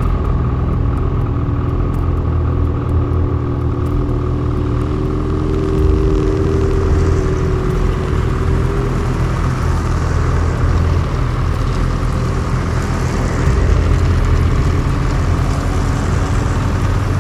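Snowmobile engines running with a steady low rumble as several sleds pull out and pass one after another. A passing sled's engine note rises clearly for a few seconds near the middle, then fades.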